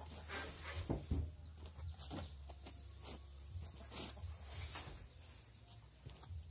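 Small rectangular hay bales being lifted and set one on top of another: dry hay rustling and crackling, with soft thuds as the bales land, loudest about a second in.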